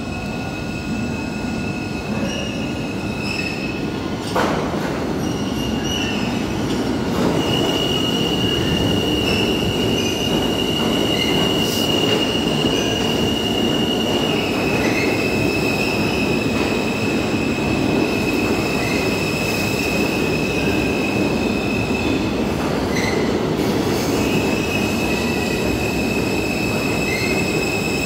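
R160 New York City subway train pulling into the station: a steady rumble of wheels on rail, with a high, steady squeal that steps slightly lower about halfway through.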